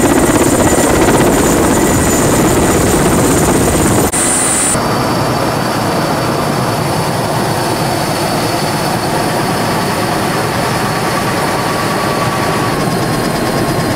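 Mil Mi-8 helicopter running loud and steady close by, its main rotor and turbines heard as it comes in low to land. There is a brief drop about four seconds in, after which the same running noise carries on.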